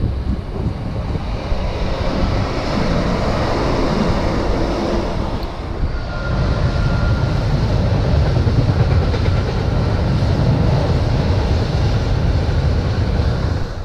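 Freight train of empty container flat wagons rolling past close by: a steady rumble of wheels on rail with clickety-clack over the rail joints.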